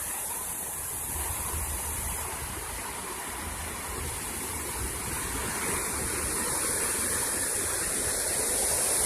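Large ocean waves breaking on a beach: a steady rush of surf that grows slightly louder near the end.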